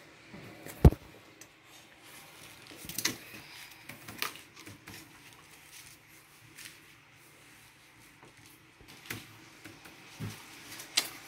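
Scattered clicks and taps of a laptop keyboard and touchpad being used, with one sharp knock about a second in.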